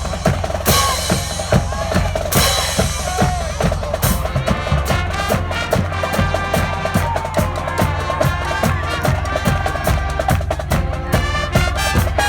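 High school marching band playing: a steady drum beat with two loud crashes in the first few seconds, then sustained chords, which the following tags mark as brass, joining in about four seconds in.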